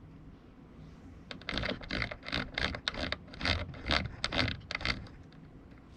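A run of irregular clicks and scrapes, two or three a second, starting about a second in and stopping about a second before the end: objects being handled or set down.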